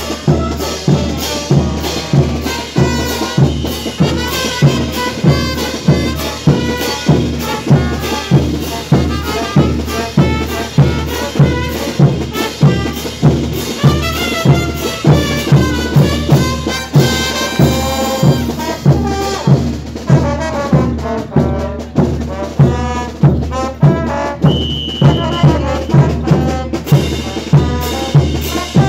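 Live street brass band playing dance music: brass instruments carry the melody over a steady bass-drum beat, a little under two beats a second.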